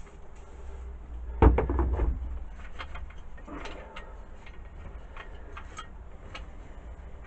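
Handling noise from the metal parts of a lathe attachment being worked on a bench: scattered light clicks and knocks, with one louder knock about a second and a half in.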